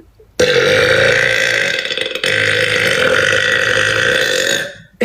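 A woman's long, loud burp lasting about four seconds, with a brief break about halfway through.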